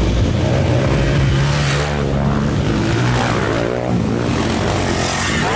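Several trail dirt bikes riding past on a dirt track, their engines revving up and down as they approach and pass.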